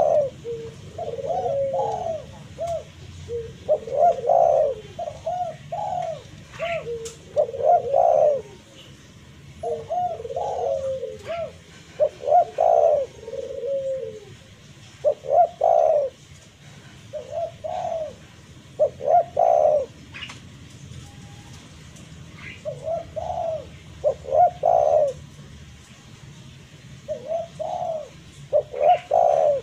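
Spotted dove (tekukur) cooing: phrase after phrase of mid-pitched coo notes with short pauses between, the call used to challenge a rival dove. The phrases come almost back to back at first, then in shorter groups with longer gaps after about twenty seconds.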